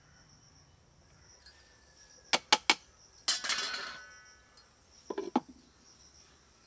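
Cooking utensils clinking against clay pots and dishes: three sharp taps, then a short scraping clatter that rings like a metal plate, then two knocks near the end. Insects chirp steadily underneath.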